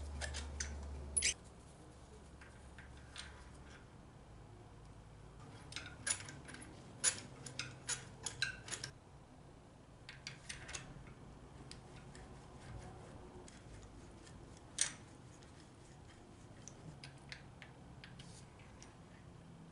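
Socket ratchet clicking in short irregular runs, with clinks of metal tools, while a spark plug is turned in the 2012 Honda Civic's cylinder head. A low hum stops about a second in.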